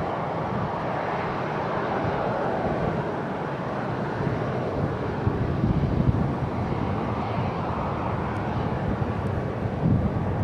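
Boeing 787-8 on final approach, its Rolls-Royce Trent 1000 jet engines making a steady, distant rushing hum. Wind buffets the microphone near the end.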